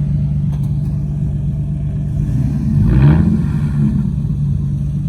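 Car engine and exhaust running steadily, with a brief rev that rises in pitch about three seconds in.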